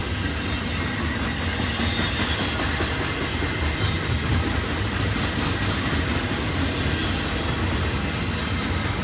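Double-stack intermodal freight train's container well cars rolling past, steel wheels running steadily on the rails with some clickety-clack.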